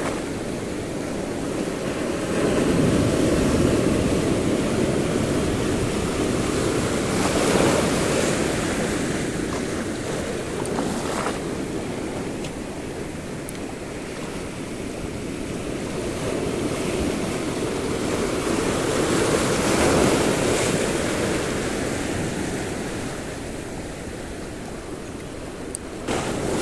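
Surf washing onto the shore, swelling and easing in several surges, with wind buffeting the microphone.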